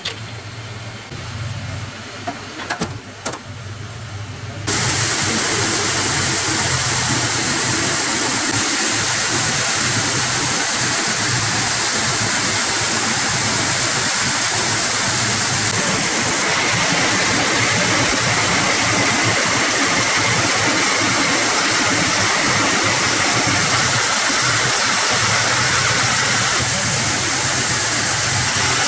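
Workshop machinery in a wooden-bead factory: a low electric hum with a couple of clicks, then about five seconds in a loud, steady hissing rush starts suddenly and keeps going.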